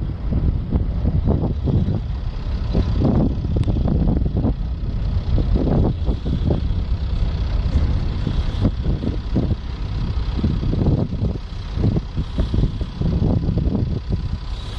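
Nuclear-powered icebreaker moving past through sea ice at close range. It makes a loud, continuous low rumble with irregular cracking and grinding as the ice breaks against the hull.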